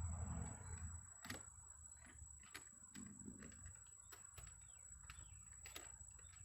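Faint scattered clicks and taps, a few a second, from plastic switch parts being handled and fitted, over a quiet background with faint chirps.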